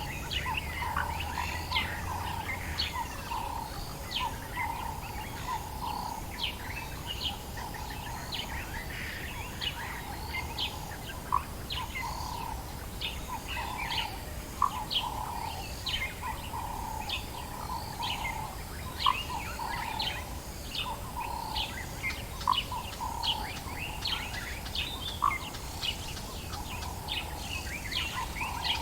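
Dawn chorus of many birds calling at once: quick high chirps and trills over a steady run of lower repeated notes, with an occasional louder single call.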